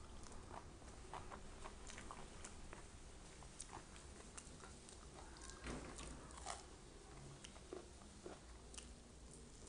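Faint chewing of raw leafy vegetables: scattered small crunches and wet mouth clicks, irregularly spaced, as fresh leaves are bitten and chewed.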